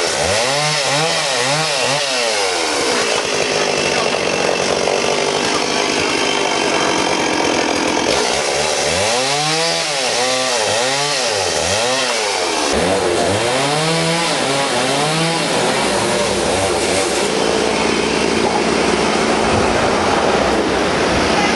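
Chainsaw cutting into a log, its engine pitch swelling up and down over and over as the throttle is worked and the chain bites, in two stretches with steadier running between them.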